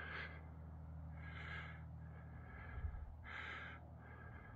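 A person's breathing close to the microphone, short hissy breaths in and out about once a second, the stronger and weaker breaths alternating, over a faint steady low hum.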